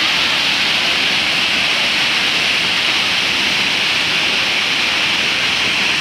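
Urlătoarea waterfall: water falling steadily down a tall rock face, a bright, even rush of noise that doesn't change.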